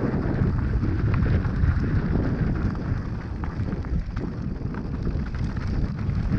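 Wind buffeting the microphone of a mountain bike ride, a heavy low rumble, with scattered clicks and rattles from the bike on rough ground.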